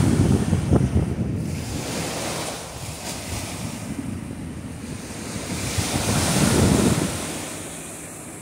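Wind buffeting the microphone over the wash of ocean surf. The gusts are heaviest at the start, ease off, then swell again about six seconds in along with a louder rush of surf.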